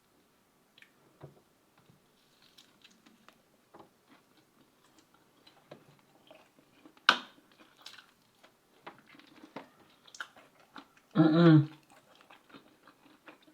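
Close-up chewing and mouth sounds of a person eating fast food: scattered quiet smacks and clicks, one sharper than the rest about seven seconds in. A short burst of voice comes a little after eleven seconds.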